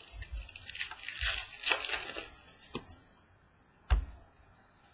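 Baseball trading cards being handled over a tabletop: about two seconds of rustling and sliding, then a light click and, about a second before the end, a single thump on the table.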